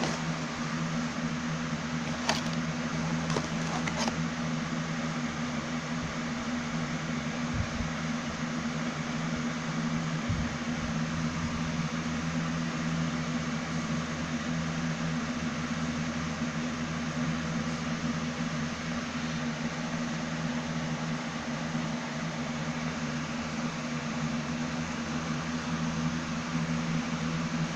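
Steady mechanical hum with an even hiss, unchanging throughout, like a running fan motor; two faint clicks come about two and four seconds in.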